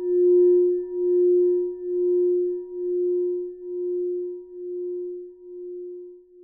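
A single struck metal tone, like a bell, ringing out and slowly fading, with a slow wavering about once a second.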